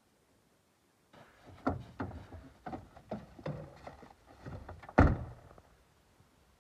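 A run of knocks and scuffs as someone climbs up into a timber truck's cab, then the cab door slamming shut about five seconds in, the loudest sound.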